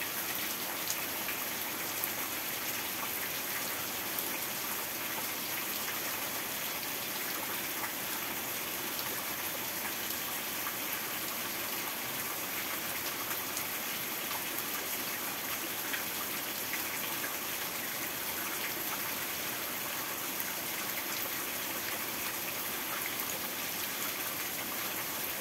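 Heavy rain pouring down: a steady, even hiss with a few faint drip ticks scattered through it.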